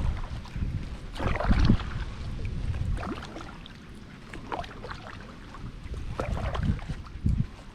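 Kayak paddle strokes in the water: irregular splashes and drips every second or two, the loudest a little over a second in.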